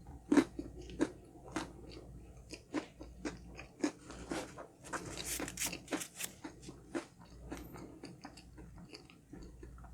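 Close-miked chewing of honey crunch cake: a run of sharp crunches, about two a second, as the hard honeycomb crunch bits coating the chiffon cake break between the teeth, with a denser, louder patch of crunching about halfway through.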